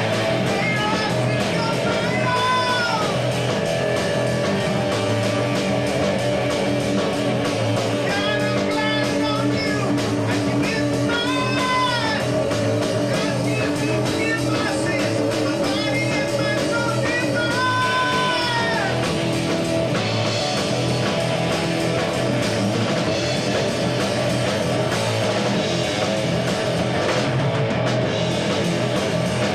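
Three-piece rock band playing live: electric guitar, bass guitar and drum kit, with high lead notes that bend up and down several times.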